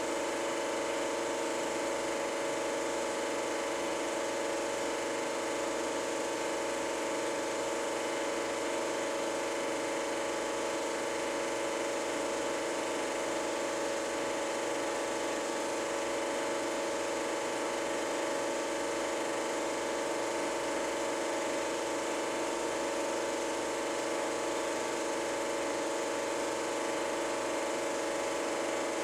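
Super 8 film projector running, a steady motor whir with no change in pitch or level.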